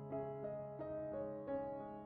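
Background music: gentle piano playing a melody of sustained notes over a held bass note.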